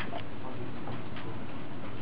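Steady room noise in a computer lab, with a few faint taps.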